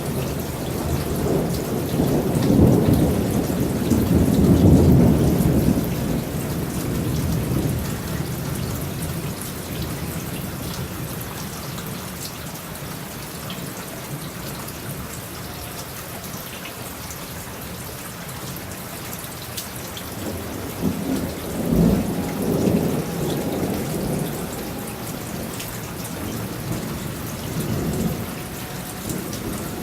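Thunderstorm: steady rain falling while thunder rumbles. There is a long rumble soon after the start, another about three-quarters of the way through, and a shorter one near the end.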